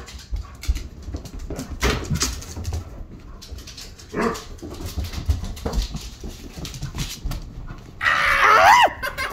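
Basset hound barking excitedly in a few short barks, then a louder, longer bark with a wavering pitch near the end.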